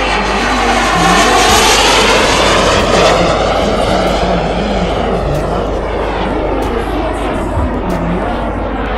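RC model jet (an F-104 Starfighter replica) flying past: a loud, steady jet rush that swells in the first couple of seconds, with the sweeping, phasing tone of a close pass, then eases a little as the jet climbs away.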